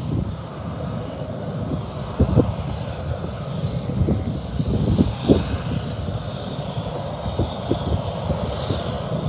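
Distant diesel locomotives of an approaching freight train running, a steady low rumble, with irregular low thuds, the strongest about two and five seconds in.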